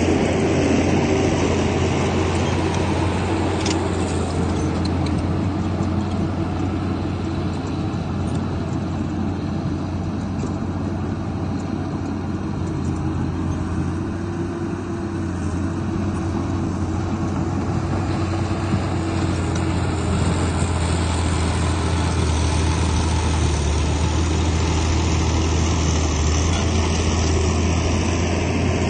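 Heavy diesel earthmoving machinery running steadily, a continuous low engine drone that holds without a break.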